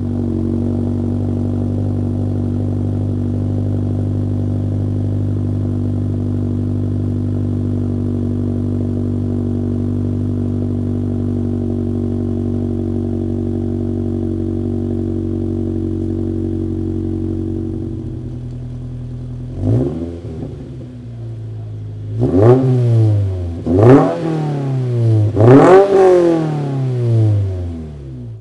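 Toyota GR86's 2.4-litre flat-four engine breathing through a newly fitted MBRP axle-back exhaust, idling steadily just after start-up. From about 20 s in it is revved in a series of quick throttle blips, each rising sharply and falling back to idle.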